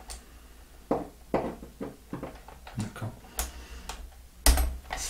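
Scattered light clicks and taps of a metal hex key turning in the pivot-ball adjuster screw of an RC car's plastic steering knuckle, with a louder knock about four and a half seconds in. The screw is being tightened to take out play in the steering.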